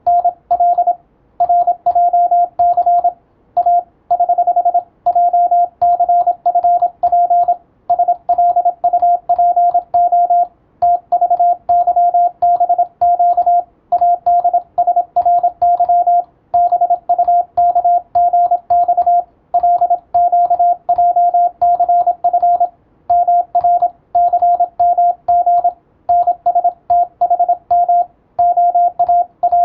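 Morse code (CW) for receiving practice: a single steady tone keyed on and off in quick dots and dashes, with short gaps between characters and words.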